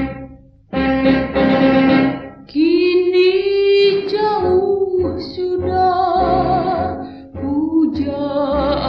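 Instrumental opening of a 1950s Indonesian jazzy pop song, with a piano, bass and drums trio backing. The melody phrases break off briefly twice, once just after the start and once about two and a half seconds in.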